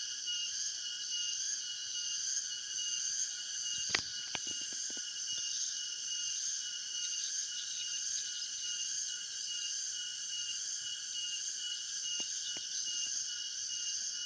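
A steady, high-pitched insect chorus of crickets and the like, in several even bands. A single sharp click comes about four seconds in, and two fainter clicks near the end.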